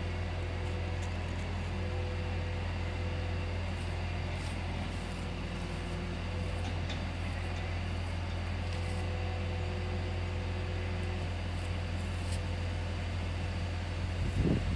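Air-conditioner outdoor unit running with a steady low hum, with a few faint ticks over it and some low bumps near the end.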